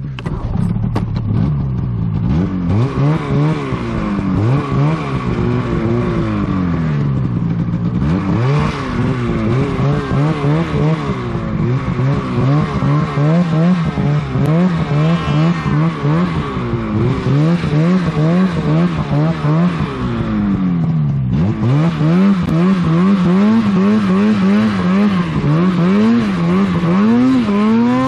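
Polaris mountain snowmobile engine revving up and down again and again as the throttle is worked through deep powder. It eases off briefly about 21 seconds in, then pulls hard again.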